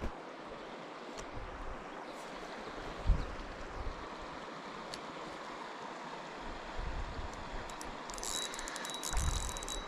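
Mountain stream flowing: a steady rush of water, with a few low thumps of wind on the microphone. About eight seconds in, a fast, high ticking starts.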